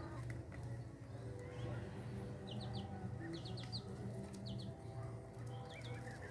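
Short, high bird chirps in quick groups of two or three, several times, over a steady low hum.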